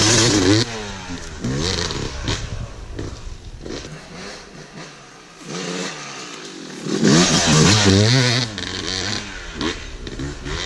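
Two-stroke Yamaha dirt bike revving hard as it rides close past, its engine pitch swinging up and down with the throttle, then fading off. About seven seconds in the revving comes loud again for a second or two.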